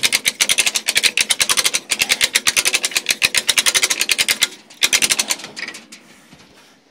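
Rapid ratcheting mechanical clicks, about ten a second, that break off about four and a half seconds in, with a brief second run of clicks just before five seconds.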